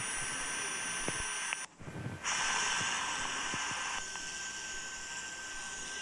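Steady static hiss on a telephone-line audio feed, with a faint high steady tone through it. The hiss drops out briefly a little before two seconds in, then carries on.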